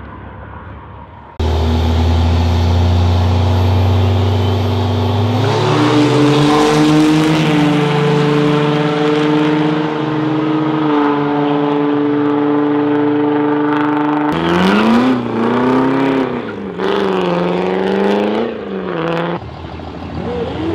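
Diesel pickup truck engines running hard on a drag strip, the pitch holding high and steady after a sudden loud start. Near the end the engine revs up and down in several quick swells.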